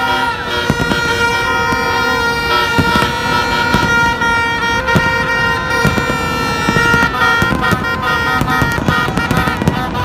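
Fireworks bursting in quick, irregular bangs, over a steady din of many horns tooting at once.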